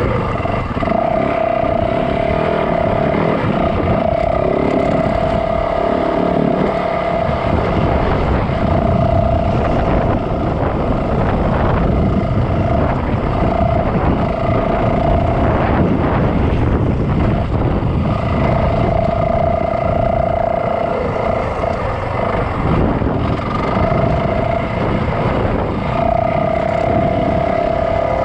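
Yamaha dirt bike engine running while riding a trail, under a steady rumble of road and wind noise. A steady whine keeps cutting in and out.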